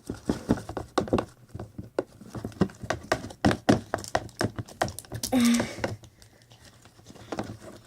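Mixing utensil knocking and clicking against a bowl in quick, irregular taps while stirring a glue, water and food-colouring mixture for slime. The taps thin out after about five seconds.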